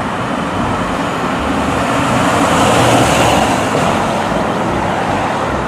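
Ambulance driving along a street: a steady rush of engine and road noise, with no siren wail.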